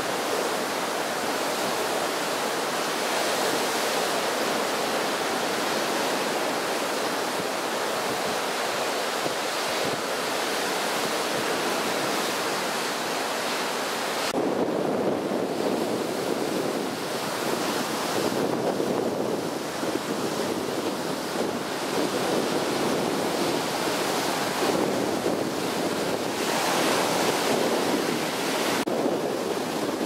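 Rough sea in strong wind: waves breaking and surf rushing and washing in. About halfway through, the sound changes to a heavier, surging wash.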